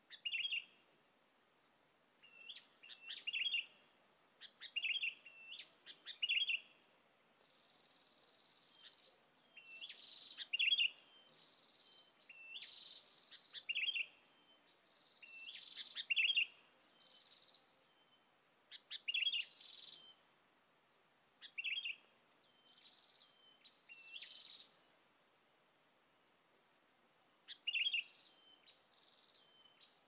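Sooty-headed bulbuls (kutilang) calling: short chirped phrases repeated every second or two, some with brief rising notes. A faint, steady, high-pitched hum lies underneath.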